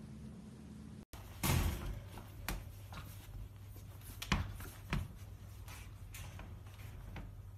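A puppy playing with toys in a wire crate: a handful of knocks and thumps, the loudest about a second and a half in and two more close together near the end, over a steady low hum.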